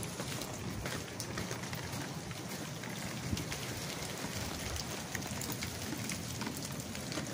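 Steady rain falling, with many small scattered drop ticks.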